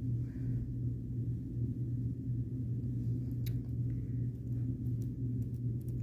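A steady low hum, constant in pitch, with a few faint clicks about halfway through and again near the end.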